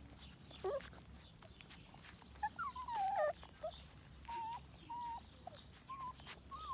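Newborn Kangal puppies whimpering as they compete to nurse: one longer whine that falls in pitch about two and a half seconds in, then a string of short, high, even-pitched squeaks roughly every half second.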